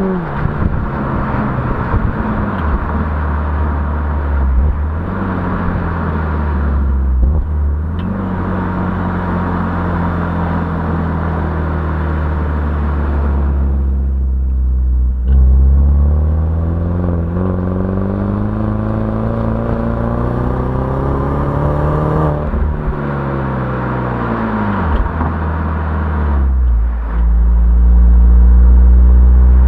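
BMW 116i E87's four-cylinder petrol engine with stock exhaust, running and being revved. The pitch drops at the start, holds steady, then climbs for several seconds from about halfway before falling away sharply, over a deep steady rumble that grows louder near the end.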